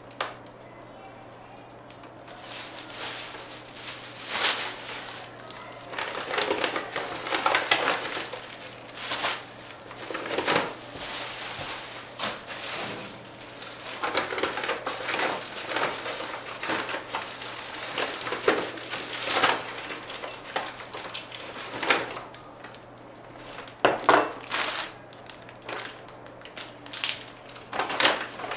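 Hard objects clattering, clinking and scraping as things are handled and moved about while cleaning, in irregular bursts with some rustling.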